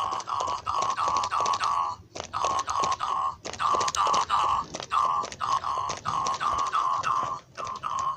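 Battery-operated Cookie Monster plush toy playing its eating sound effects through its small speaker: quick repeated chomping and crunching bites, about three a second, with a few short pauses.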